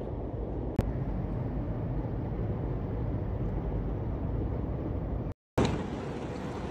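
Steady low rumbling noise with a hiss above it, broken by a click about a second in and a brief cut to silence near the end.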